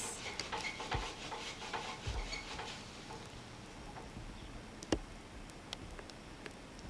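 Faint hiss with scattered light clicks and a few soft knocks; one sharper click about five seconds in.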